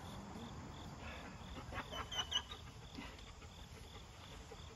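Crickets chirping steadily in the background, about three chirps a second. A few brief knocks and a short high squeak come about two seconds in.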